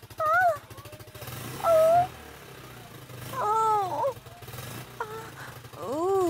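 A cat meowing repeatedly, about five rising-and-falling meows, one every second or two, over the low steady hum of an idling motorcycle engine.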